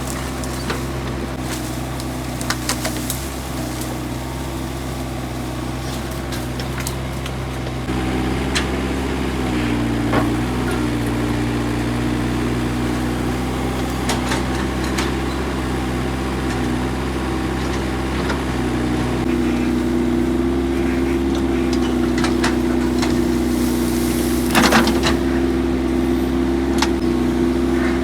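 Excavator's diesel engine running steadily, its note shifting and getting louder about eight seconds in and again after about nineteen seconds as the hydraulics take load. Scattered knocks and clunks sit over it, the loudest about three-quarters of the way through.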